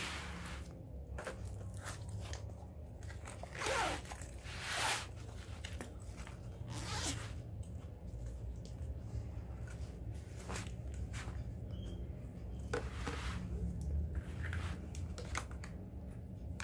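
Fabric travel pouch and its packed contents being handled: short, scattered rasps and rustles of canvas-like fabric, mesh and zip, with a low steady hum underneath.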